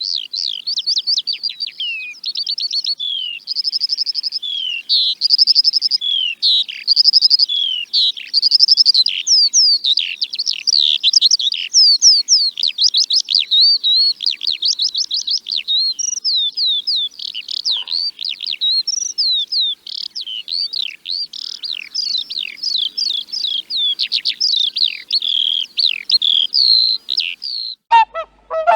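A songbird singing continuously: a fast, varied run of high chirps, trills and slurred whistled notes with hardly a pause. Near the end the song gives way abruptly to a lower, harsher call.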